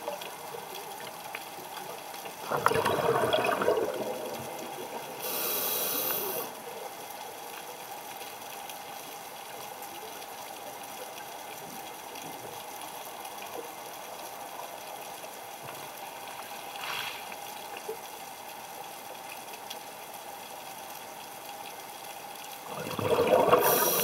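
A scuba diver breathing through a regulator underwater: a burst of exhaled bubbles about three seconds in and again near the end, and the hiss of an inhale around five to six seconds in. A steady hum fills the long gap between breaths.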